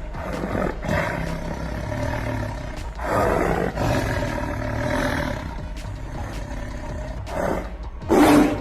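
An animal's loud calls, several in a row with pauses between, the shortest and loudest near the end.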